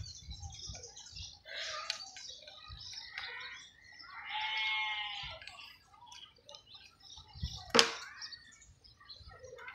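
Birds chirping and calling in the background, with a louder, longer call about four and a half seconds in. A single sharp click sounds near the end.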